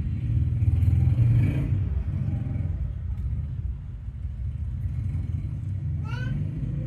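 A steady low rumble, loudest in the first two seconds, with a few short rising lovebird chirps near the end.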